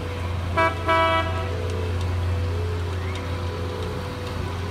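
A water-taxi boat sounds its horn twice about half a second in, a short toot and then a slightly longer one, over the steady low rumble of its engine.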